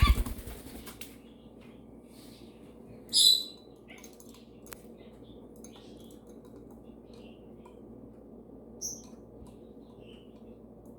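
Pet parrot flapping its wings in a brief noisy flurry at the start, then one short, loud, high chirp about three seconds in and a faint chirp near the end, over a steady low hum.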